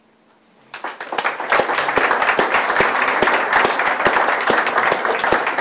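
Audience applauding, starting about a second in and holding steady as a dense patter of many hands clapping.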